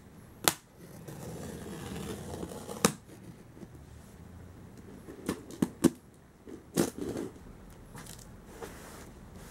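Cardboard shipping box being opened: a serrated knife cuts through the packing tape, then the tape and flaps are worked loose by hand. There is a rough tearing rustle early on and several sharp taps and knocks on the cardboard.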